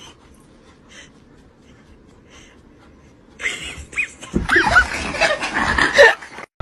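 A puppy's short, high-pitched yips and whines, starting about three and a half seconds in after a quiet start.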